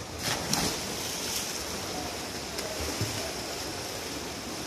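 A swimmer's racing dive hitting the water: a splash in the first second, then a steady wash of churning water echoing in the pool hall.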